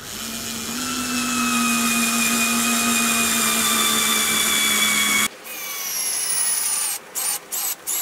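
Bosch IXO 3.6 V cordless screwdriver driving a 2-inch screw into pine: a steady motor whine whose pitch sinks slowly under load, cut off abruptly about five seconds in. After that the same screwdriver is heard sped up, a higher whir broken into quick bursts, about three a second, as screws are driven in and out.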